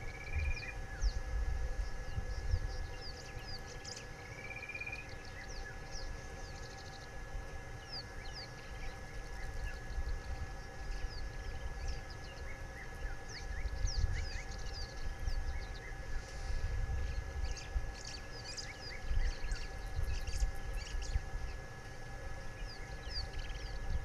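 Outdoor bush ambience: many small birds give short high chirps throughout, with a rising whistled note right at the start and again about four seconds in. Irregular gusts of wind rumble low on the microphone.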